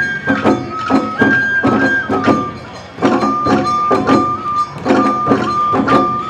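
Awa odori festival band music: a bamboo flute (shinobue) holding a stepping melody over quick, even drum and bell beats, about three a second, with a brief break a little over two seconds in.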